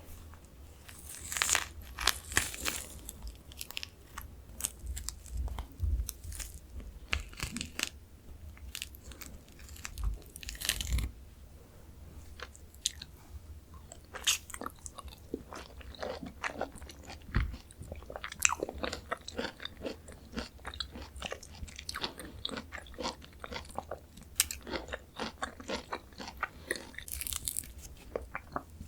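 Close-miked Jeju mandarin oranges being peeled and eaten: a dense run of short, crisp crackles and wet clicks, with louder bursts about two seconds in and again around eleven seconds.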